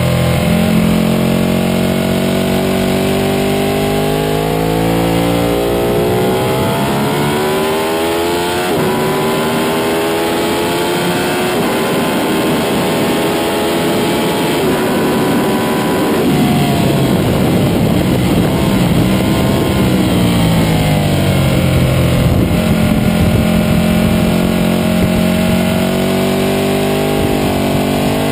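Ducati 1199 Panigale's V-twin engine at full throttle, its pitch climbing and dropping back at each upshift, with heavy wind rush over the bike at top speed. About halfway through, the engine note falls in steps as it is downshifted under braking, then it rises again as the throttle is reopened near the end.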